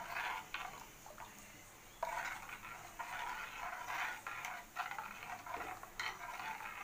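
A metal spoon stirring buttermilk curry in an earthen clay pot, scraping against the pot in repeated strokes with a few light clinks and a short lull about a second in. The curd is kept moving as it heats so that it does not split.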